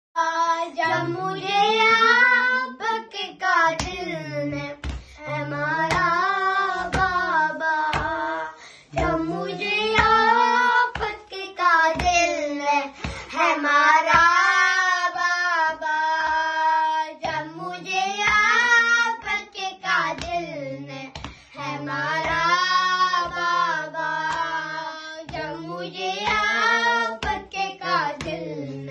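Two boys singing an Urdu lament (noha) in unison without instruments, with chest-beating (matam) hand slaps keeping a steady beat about once a second.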